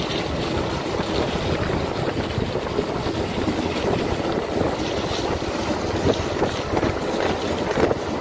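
Wind buffeting the microphone over the steady running noise of the moving vehicle carrying it, with uneven gusts.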